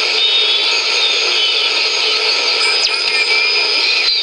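Shortwave radio audio from an HP 8920A service monitor tuned near 14670 kHz while its knob is turned: a steady hiss of static with faint wavering whistles, and a short falling whistle about two-thirds of the way through.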